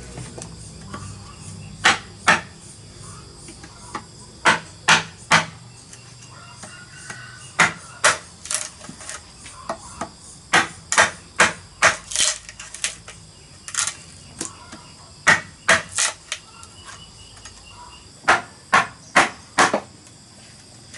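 A hammer striking a chisel cut into a thick green bamboo section: sharp blows in groups of two to five with short pauses between. A steady high chirring of insects runs underneath.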